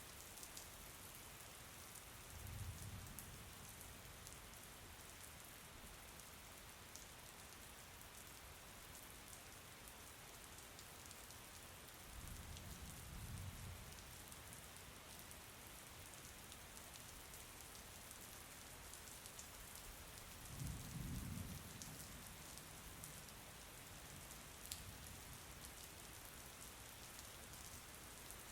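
Faint, steady rain with fine ticks of individual drops. Three brief low rumbles come about two seconds, twelve seconds and twenty-one seconds in.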